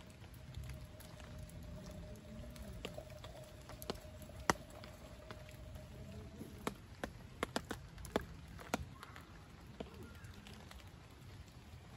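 Steel camp cup of boiling water handled over a small stove flame, giving sharp metal clicks and taps, then hot water poured into a mug, over a low steady rumble. A faint steady tone stops a little past halfway through, around when the cup comes off the flame.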